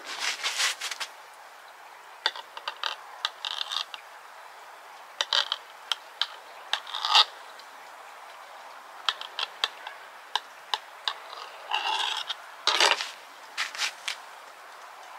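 Kitchen knife slicing a mushroom on a glass cutting board: irregular bunches of sharp clicks and short scrapes as the blade strikes and slides on the glass.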